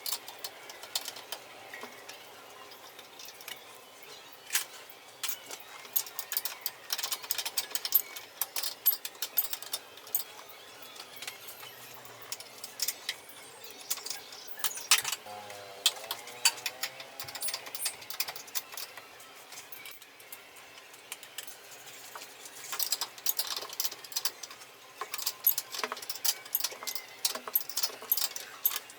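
Metal tools and parts clinking and rattling in irregular runs of sharp clicks while the engine mounting is being worked on, with a short wavering squeak about halfway through.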